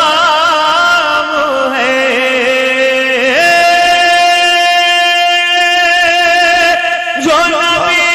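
A man singing a devotional Urdu manqabat through a stage microphone and PA, drawing out wordless melismatic held notes that waver in pitch. In the middle he holds one long steady note for about three and a half seconds, then breaks off and starts a new phrase near the end.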